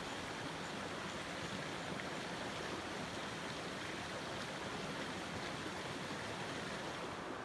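Steady rushing of flowing river water: an even hiss with no single event standing out.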